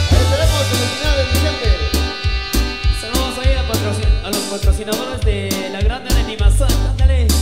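Live tropical dance band playing: horns, electric bass, keyboard and percussion over a steady dance beat, with a lead vocal line.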